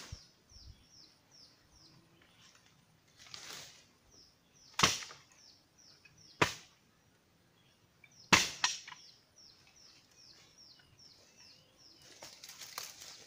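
Woodland ambience: a high, short, falling chirp repeated about three times a second, broken by three sharp cracks, the loudest sounds, with rustling and knocks near the end.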